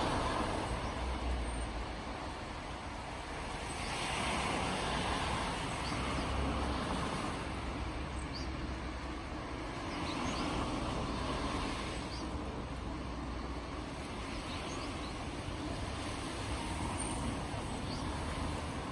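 Distant road traffic: a steady rush that swells and fades every few seconds as vehicles pass.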